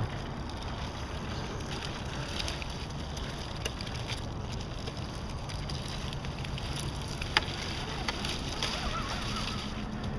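Scale RC rock crawlers clicking and knocking over boulders as they climb, one sharper click about seven seconds in, over a steady hiss.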